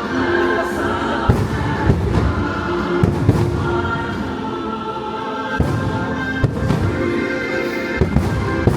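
Fireworks bursting: sharp bangs every second or so over a patriotic show soundtrack of orchestra and choir singing.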